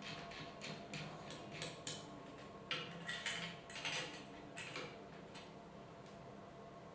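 Xendoll mini woodturning lathe running with a faint steady motor hum, while a hand-held tool scrapes against the spinning wood in short, irregular scratches.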